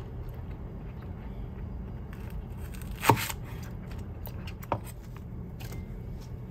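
Chef's knife chopping through a leek stalk onto a wooden chopping board: one sharp chop about three seconds in and a lighter one shortly after, over a steady low hum.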